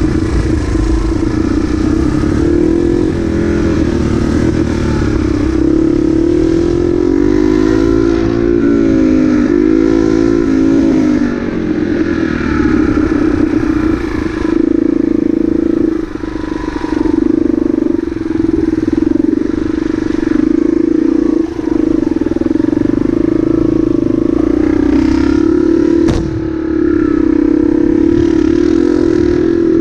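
Motorcycle engine running while riding slowly over rough garden paths. Its pitch rises and falls with the throttle, with several brief dips where the throttle is eased off.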